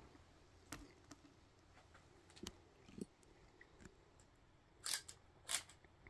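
Faint handling noises of a rifle and shooting gear: a few light clicks and knocks, then two short, sharper clicks about half a second apart near the end.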